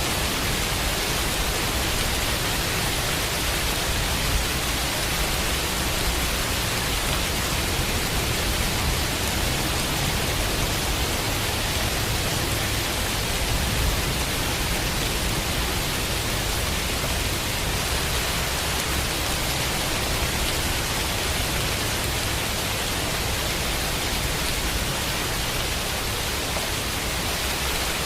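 Steady rain, an even hiss with no single drops or thunderclaps standing out, over a constant low rumble.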